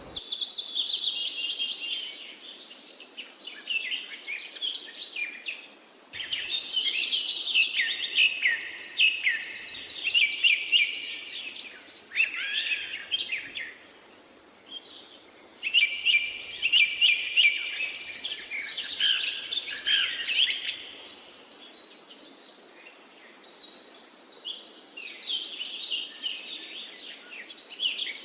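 Birds chirping and trilling in quick, overlapping spells of high notes, with short lulls about five and fourteen seconds in and softer chirping in the last third.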